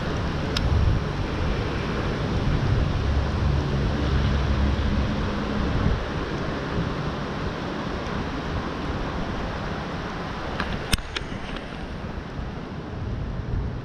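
Steady hiss of rain falling, with wind buffeting the microphone as a low rumble through the first half. A few sharp clicks come about eleven seconds in.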